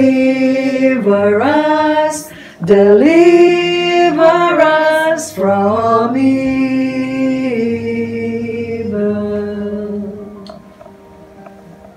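A small group of men and women singing a hymn together, unaccompanied, in long held notes. The song ends on a held note that fades out about ten seconds in.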